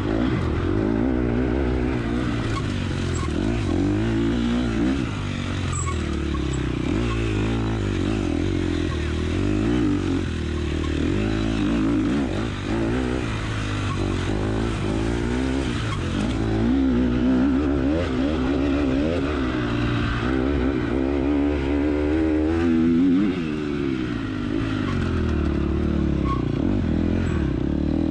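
Dirt bike engine heard from an onboard camera, revving up and falling back again and again as the throttle is worked and gears change at racing pace.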